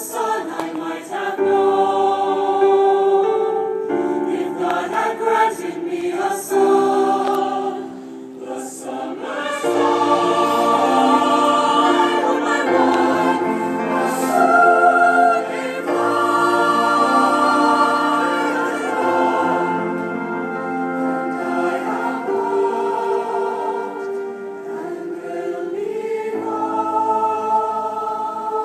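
Choir singing in several-part harmony, holding long notes that change chord every second or two.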